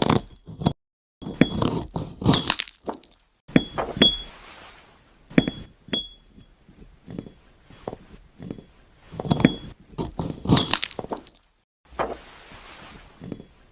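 ASMR sound effect of a knife cutting through a glass apple: crisp crunching cuts mixed with glassy clinks and brief ringing tones. The cuts come in about half a dozen separate groups with short pauses between them.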